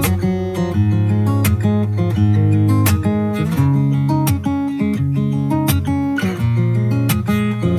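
Background pop music: an instrumental passage with strummed acoustic guitar over a steady beat, no singing.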